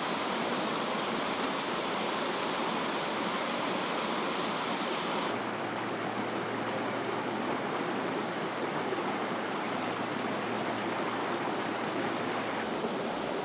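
Steady rush of running water. Its tone shifts slightly about five seconds in and again near the end.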